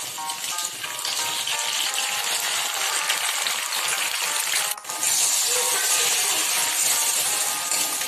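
Beaten egg frying in hot oil beside carrot and capsicum strips in a kadai, sizzling steadily with background music underneath. The sound dips briefly about five seconds in, and the sizzle is a little louder after that.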